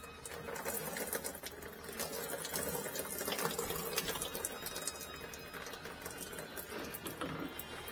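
Diesel fuel trickling from the loosened fuel filter housing into a catch pan, with rapid scattered clicks and rattles of the housing being worked off.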